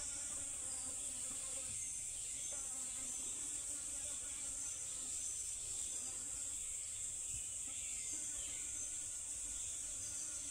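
A steady, high-pitched chorus of insects buzzing in a summer forest.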